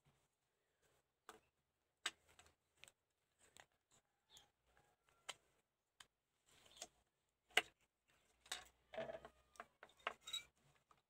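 Light plastic clicks and taps from the parts of a toy model car's chassis and wheels being handled and fitted together on a table. The clicks are scattered and sparse, with one sharper click past the middle and a quicker run of them near the end.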